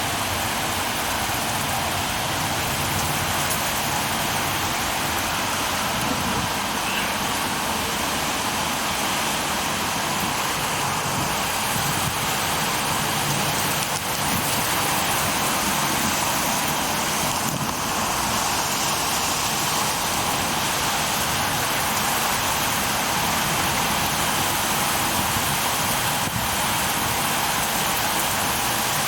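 Heavy rain pouring steadily in a severe thunderstorm with strong winds.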